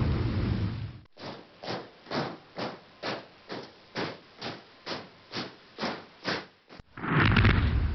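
The tail of a blast dies away, then about a dozen evenly spaced footfalls, roughly two a second, like a squad of men marching in step; a new loud, deep blast starts near the end.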